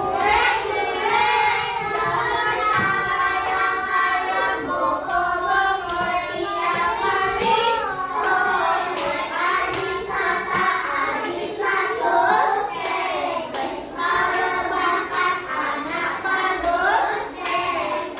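A group of children singing a song together, clapping their hands in time with it.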